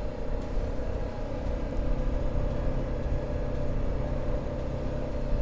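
BMW G 310 GS motorcycle's single-cylinder engine running at a steady cruise under way, with a low rumble of wind and road noise.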